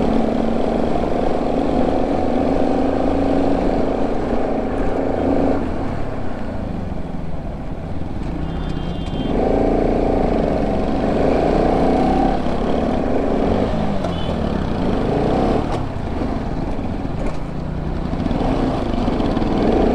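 Bajaj Pulsar RS200 single-cylinder motorcycle engine pulling up a steep hill road at low speed. Its note rises and falls as the throttle is worked, easing off for a few seconds twice before pulling strongly again.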